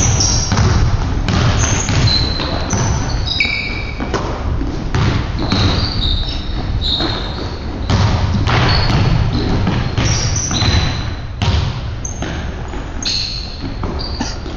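Basketball-shoe soles squeaking on a hardwood court, many short high squeaks as players cut and stop, mixed with the thuds of a dribbled basketball and footfalls.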